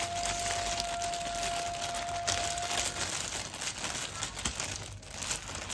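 Thin plastic bags worn as gloves crinkling and rustling as hands squeeze and shape grated cassava dough. A thin steady tone runs underneath and stops about three seconds in.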